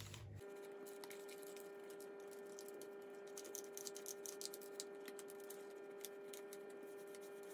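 Faint irregular light clicks and rubbing as a damp cloth is wiped over the plastic housing of a Dyson V15 carpet floor head and the head is handled, over a steady faint hum.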